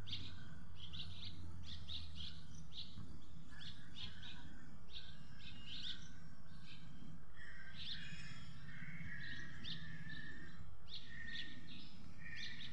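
Small birds chirping: many short, high calls in quick succession, with a few longer, slightly lower notes from about halfway on, over a low steady background hum.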